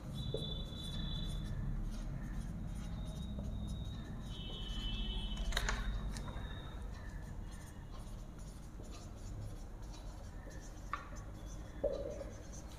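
Marker pen writing on a whiteboard: soft strokes with short high squeaks of the felt tip on the board, and a few sharp taps as the marker meets the surface.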